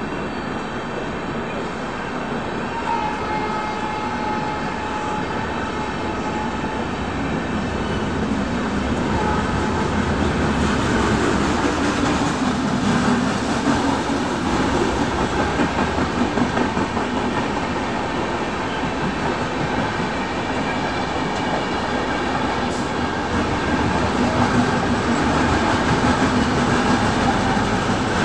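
Express train passenger coaches passing close by at speed: a steady rumble of wheels on rail with a rhythmic clickety-clack over the rail joints, getting a little louder near the end.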